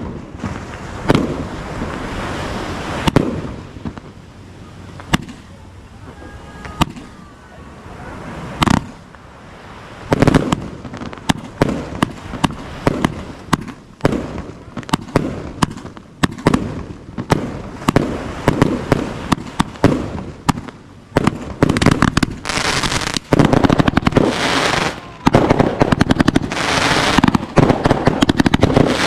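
Multi-shot aerial fireworks going off. Scattered bangs at first, then about a third of the way in a rapid, continuous string of launches and bursts, which builds near the end into dense, crackling volleys.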